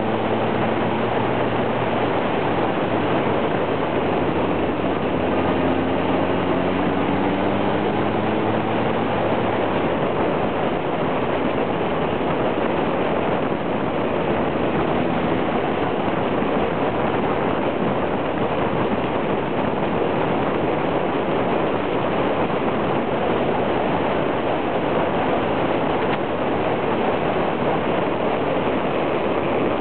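Motorcycle at riding speed, heard from a camera mounted low on the bike: a steady rush of wind and road noise. Over the first ten seconds or so the engine note rises in pitch as the bike speeds up, then it is lost under the wind.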